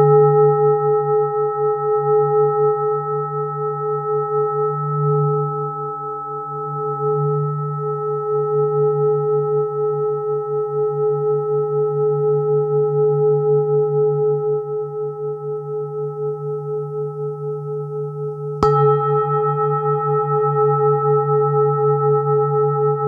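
A large metal singing bowl ringing, a low hum with several higher tones above it, wavering in slow even pulses. About three-quarters of the way through it is struck again, a sharp hit that sets it ringing louder.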